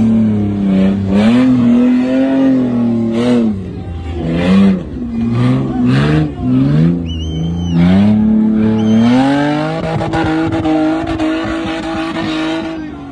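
Jeep Cherokee's engine revving hard under load on a steep dirt climb, its pitch rising and falling again and again before holding steady for the last few seconds. A brief high squeal comes about seven seconds in.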